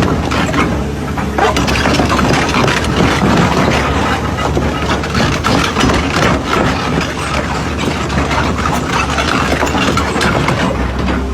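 Excavator engine running steadily, with many short metallic knocks and clanks over it.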